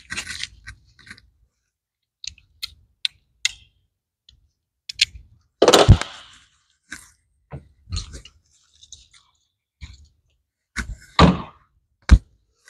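Scattered clicks and light metallic knocks from tools and parts being handled at the connecting rod of an opened aircraft engine crankcase, with a louder knock about six seconds in.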